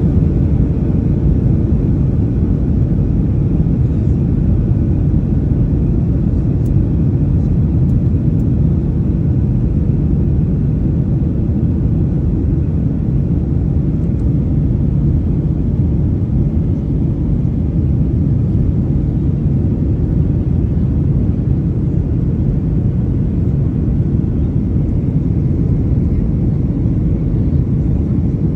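Steady rumble of engine and airflow noise inside a jet airliner's cabin on approach to landing, with flaps extended.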